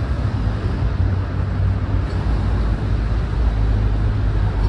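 Steady outdoor street ambience: a continuous low rumble with a hiss over it.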